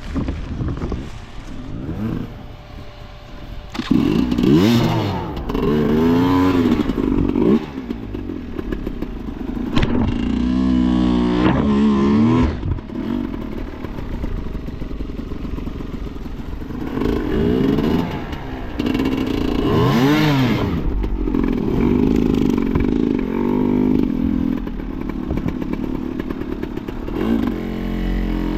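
Enduro motorcycle engine revving up and down in repeated throttle bursts, with clattering and scraping from the bike over rough ground.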